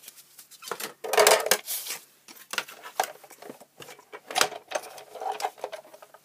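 Hands handling freshly die-cut cardstock and crafting tools: an uneven run of clicks, taps and rustles, loudest about a second in.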